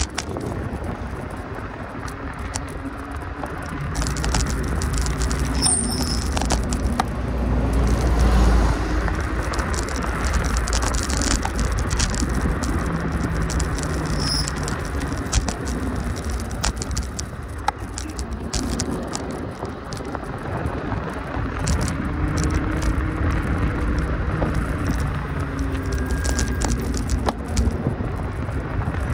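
Continuous rumble and rattling of a vehicle in motion, with frequent small clicks and clatter.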